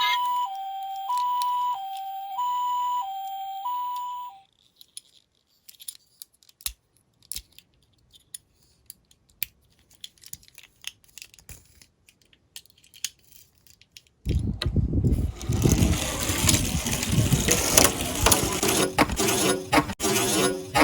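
Toy emergency-vehicle minicar's electronic two-tone siren, alternating high and low notes about every half second, cutting off about four seconds in. Light scattered clicks follow, then from about fourteen seconds in a loud, continuous clattering rattle.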